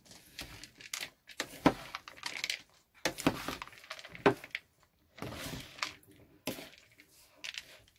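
Red plastic spoon tossing a salad of blanched shredded cabbage in a plastic bowl: irregular wet rustling and scraping strokes with short pauses, and a few sharper clicks among them.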